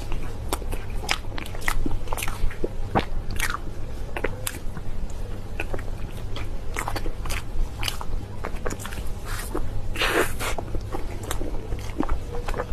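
Close-miked eating of seafood: biting and chewing, heard as many irregular sharp clicks, with a longer, louder stretch about ten seconds in.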